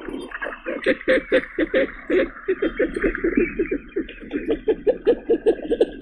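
Common goldeneye calling: a rapid run of short, repeated calls, about five a second.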